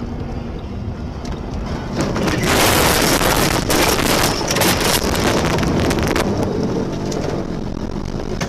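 Car driving, with steady engine and road rumble. About two seconds in, a loud rushing, crackling noise starts over it, lasts about four seconds and then fades.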